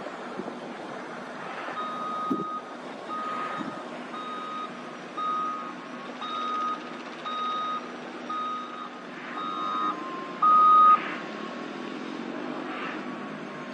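Telehandler's reversing alarm beeping at one steady pitch, about once a second, over its engine running; the beeps stop about eleven seconds in.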